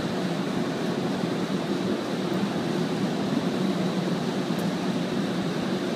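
Steady machinery hum and rush aboard a ship, unchanging throughout.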